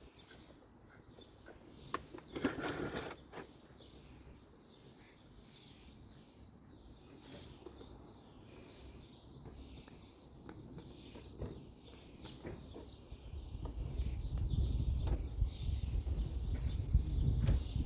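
Small birds chirping throughout, over workshop handling noise: a brief clatter about two and a half seconds in, and a low rumble in the last few seconds.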